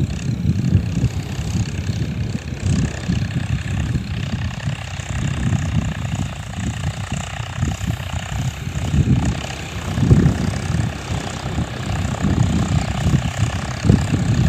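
John Deere 5050D tractor's turbocharged diesel engine running, a continuous low rumble that swells and dips.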